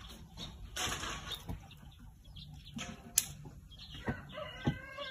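Dry brushwood and branches rustling, with scattered snaps and a few sharper cracks as the sticks are handled. A hen starts clucking near the end.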